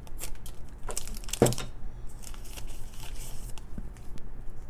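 Scissors snipping open a small foil pouch, with the foil crinkling as it is handled and emptied; several sharp clicks, the loudest about a second and a half in.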